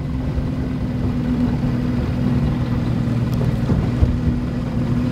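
Motorboat engine running steadily while the boat is under way, a constant low drone with a steady hum.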